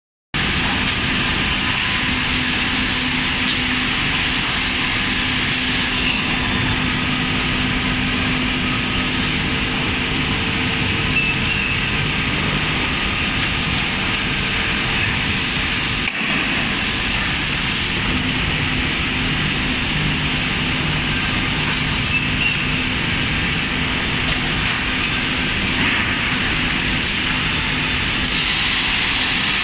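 A CNC panel drilling machine and the factory machinery around it running: a steady mechanical din with a low hum under an even hiss.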